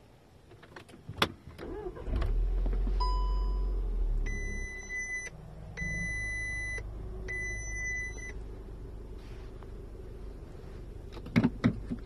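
A VW Tiguan 2.0 TSI four-cylinder turbo petrol engine is cranked and starts about two seconds in, then settles to a steady idle. A single chime and then three long warning beeps of about a second each sound from the instrument cluster after the start, and a few sharp clicks near the end come from the DSG gear selector being moved.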